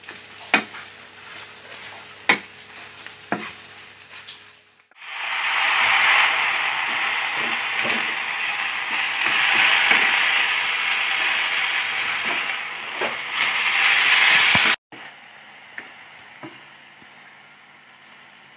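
Food stir-frying in a nonstick pan, with a wooden spatula knocking and scraping against the pan a few times. About five seconds in, a loud sizzle starts as bean sprouts fry with scrambled egg and onion. It cuts off suddenly near the end, leaving quieter stirring.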